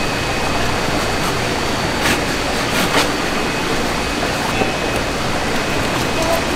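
Steady background noise, with a knife scraping briefly across a plastic cutting board a couple of times, about two and three seconds in, as flatfish skin is cut away from the fillet.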